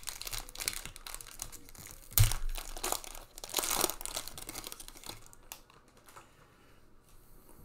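Panini Prizm trading-card pack's foil wrapper being torn open by hand and crinkling, with a sharp thump about two seconds in. The rustling dies down after about five seconds.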